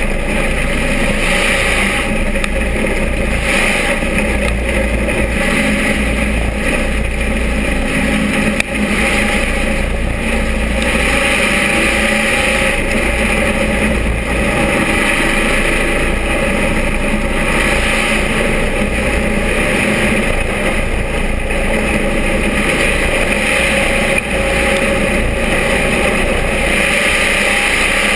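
Dirt-track stock car's engine running hard at racing speed, heard from inside the cockpit, loud and unbroken. It swells and eases every few seconds as the car goes down the straights and through the turns.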